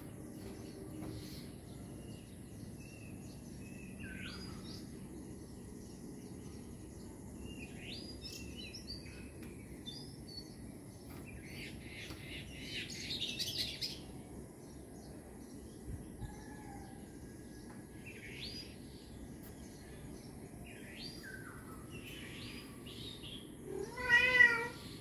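A kitten gives one short, loud meow near the end, over birds chirping on and off outside.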